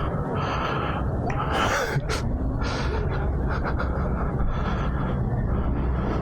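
A person breathing hard close to the microphone over a steady low rumble. There is a sharp noisy burst and a click about two seconds in.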